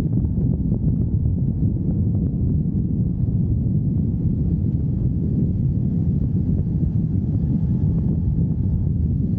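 Wind rushing over the microphone of a motorcycle riding at speed: a steady, dense low rumble in which engine and road noise are buried.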